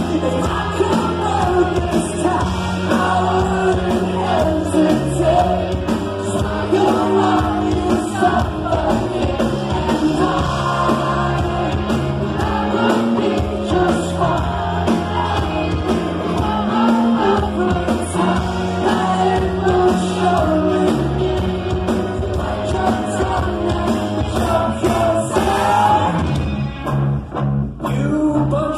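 Live rock band playing with a lead singer, vocals, guitar, keyboards and drums heard loud from the crowd and washed by the hall. The music drops out briefly about two seconds before the end.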